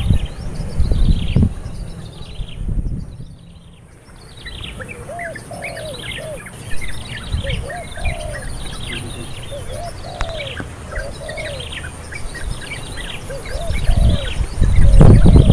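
Wild birds calling: many quick high chirps, each falling in pitch, over a lower arched whistled note repeated about once a second. A low rumble sounds at the start and again near the end.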